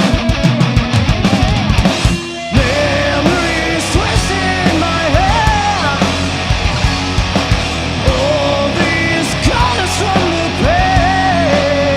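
Live heavy rock band playing: fast drums and distorted guitars, a short break about two seconds in, then the full band comes back in with a lead melody over it.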